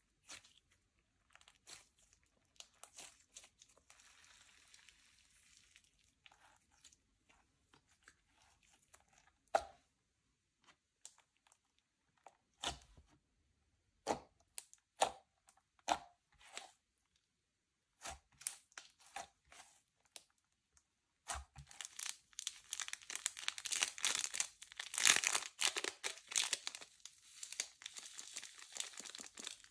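Slime being worked by hand: scattered sticky clicks and pops, then from about two-thirds of the way through a dense, louder run of crackling as the slime is squeezed and stretched.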